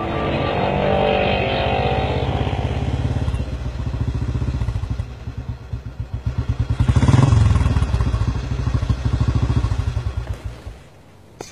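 Motorcycle engine running with a rapid, even beat. It rises briefly about seven seconds in, then is switched off and cuts out suddenly near the end.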